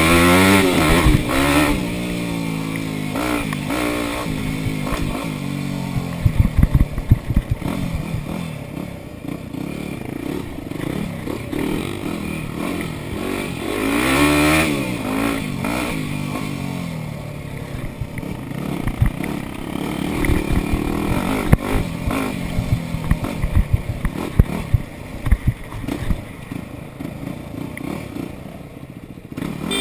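Dirt bike engine revving up and down while riding a rough trail, with rev peaks near the start and about halfway through. Sharp rattles and knocks come from the bike bouncing over bumps, in clusters a few seconds in and again later.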